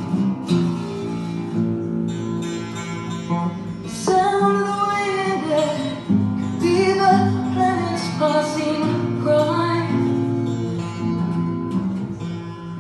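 Acoustic guitar music with a singing voice, mostly in the middle of the passage.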